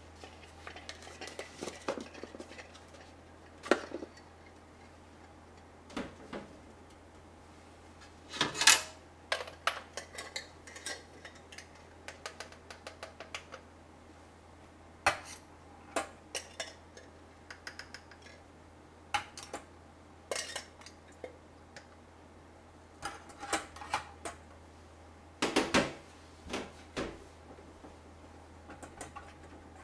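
Stainless steel camping pots and cups clinking and knocking on an aluminium table as eggs are set into a stainless pot: scattered taps and clatter, loudest about nine seconds in and again about twenty-five seconds in, over a faint steady low hum.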